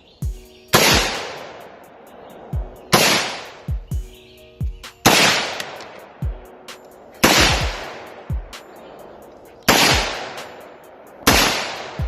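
Six loud gunshots, spaced about two seconds apart, each followed by a long echoing tail, with fainter shots in between.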